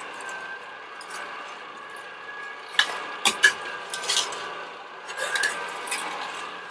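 Shine SJV-107-A vertical slow masticating juicer running with a steady hum while leafy greens are pressed down its feed chute. A few sharp plastic knocks and clatters come from about halfway through, as the pusher works in the chute and is lifted out.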